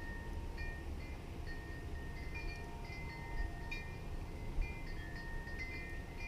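Wind chimes ringing: short, clear tones at several pitches, sounding irregularly over a low rumble.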